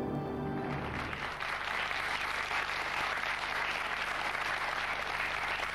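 The last notes of a TV theme tune end about a second in, followed by a studio audience applauding steadily.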